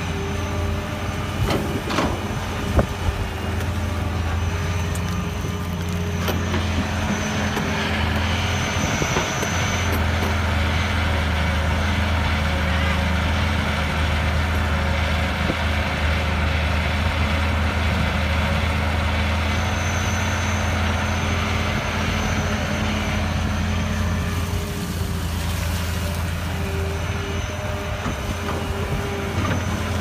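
Cat 320B excavator's diesel engine and hydraulics running under load as it digs and swings earth into a dump truck, working a little harder through the middle stretch. A few sharp knocks about two to three seconds in as a bucketload of earth drops into the steel truck bed.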